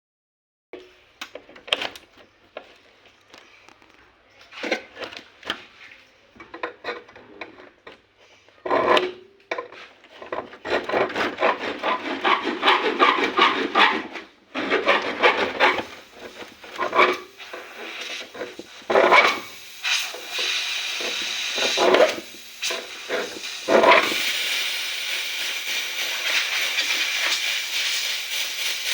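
Irregular scraping and rubbing strokes on hard parts for most of the clip. About 24 seconds in, a steady gas hiss starts: refrigerant flowing through a window air conditioner's service hose or valve.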